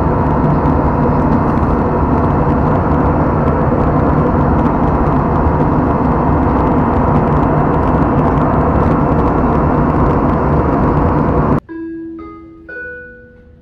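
Steady, loud airliner cabin noise in cruise: engine and airflow rush heard from inside the cabin. About eleven and a half seconds in it cuts off abruptly, and a short chime jingle of a few ringing notes follows and fades.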